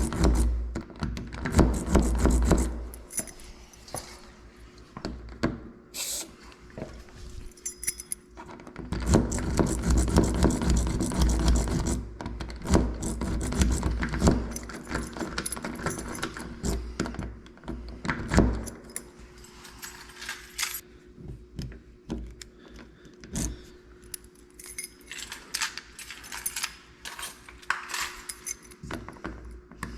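A bunch of keys jangling, with many small metallic clicks and rattles, as keys are handled and worked at a door lock.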